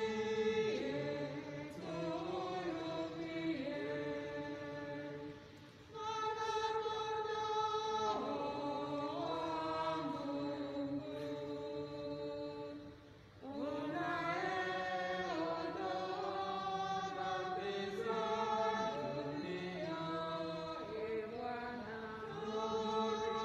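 A choir sings a hymn in several voices, in long held phrases, with two short breaks about five and thirteen seconds in.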